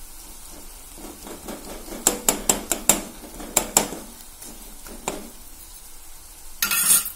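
A steel spoon stirring an onion-tomato mixture in a metal frying pan, knocking and scraping against the pan many times in quick succession about two to four seconds in and again near the end, over a light sizzle of the frying food.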